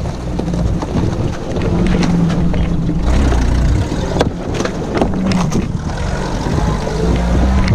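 UAZ off-road vehicle driving over a rough, muddy forest track: the engine runs with its pitch wavering up and down, and sharp knocks and rattles come from the bumps between about four and five and a half seconds in.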